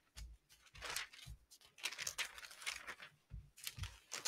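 Faint rustling and crinkling of thin paper in short, irregular bursts, with a few soft low knocks of handling: Bible pages being leafed through.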